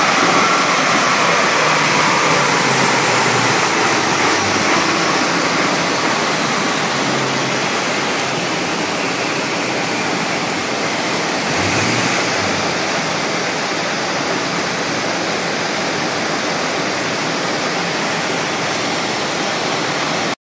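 Steady, loud rushing of a large dyno cooling fan blowing air at the car. A faint whine falls away in the first couple of seconds as the drivetrain and dyno rollers wind down after the run.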